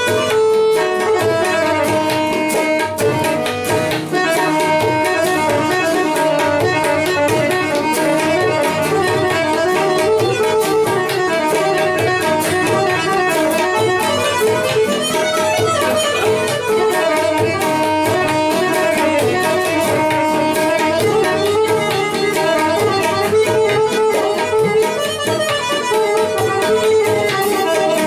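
Harmonium playing a sustained, ornamented reed melody, accompanied by tabla drumming.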